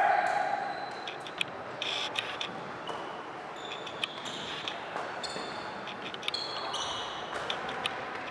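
Tchoukball play in a sports hall: the ball and players give scattered short thuds and taps, and sneakers squeak briefly on the hall floor now and then.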